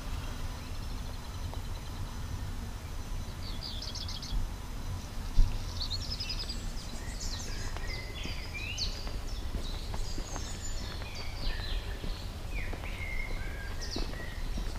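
Several songbirds singing, with short chirps and rapid trilled phrases from about three seconds in, over a steady low rumble on the microphone. A single sharp knock about five seconds in.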